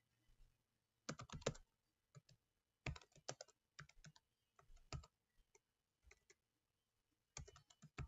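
Faint computer keyboard typing: scattered bursts of a few keystrokes with short pauses between.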